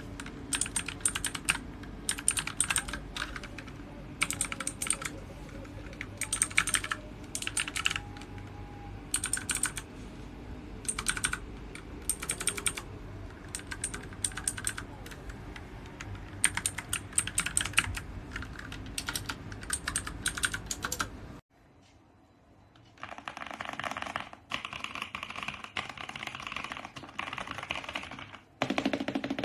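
Typing on a mechanical keyboard fitted with DANGKEY switches, in bursts of rapid key clicks with pauses between them. About two-thirds of the way through, the recording cuts to a second typing sample with a duller, less crisp click over a quieter background.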